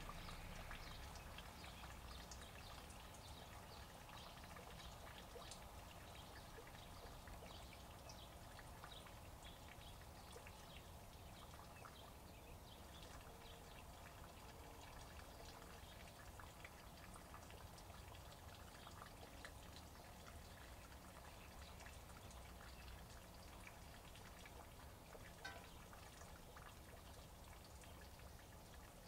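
Faint rain dripping, with many scattered small drop ticks over a low steady background hum, and one slightly louder tick a few seconds before the end.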